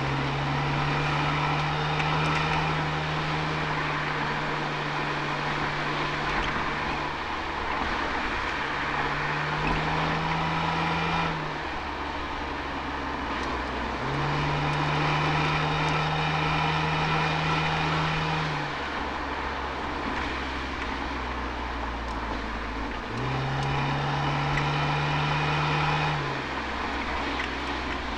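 Toyota Altezza's 1G-FE straight-six heard through its Apexi exhaust from the rear bumper, pulling under throttle four times for a few seconds each, its tone nearly steady in pitch. Between the pulls it drops back to a quieter, lower cruise, with steady tyre and road noise throughout.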